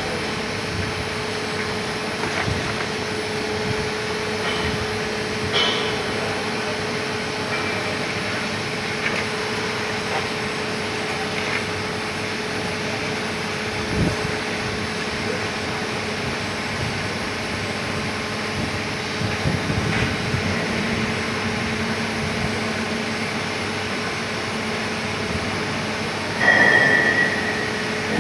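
Continuous welding-arc noise as a pipe is welded to a flange: a steady hiss with a faint hum and scattered small crackles. A short higher tone sounds near the end.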